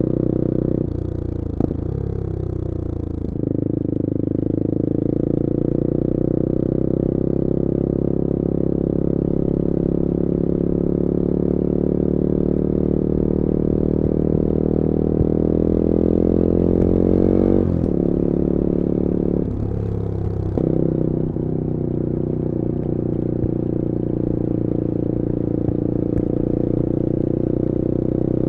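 Bullit Hero 250's CF Moto 250cc four-stroke engine running on the road. The revs shift in the first few seconds, then climb slowly through a long pull, drop sharply a little past halfway, change again shortly after, and settle to a steady run.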